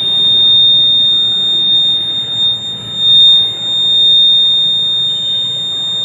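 Small electronic buzzer of a homemade fire alarm sounding one steady, high-pitched continuous tone. It is triggered by a tube-light starter used as a heat sensor, and keeps sounding as long as the starter stays hot.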